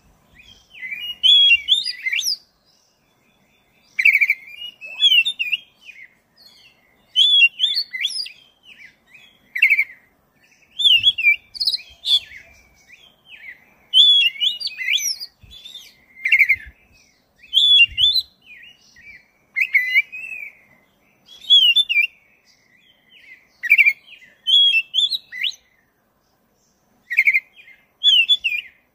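Black-breasted Oriental magpie-robin (kacer dada hitam) in full song, giving one short, varied phrase of rising and falling notes after another, each a second or two long with brief pauses between them.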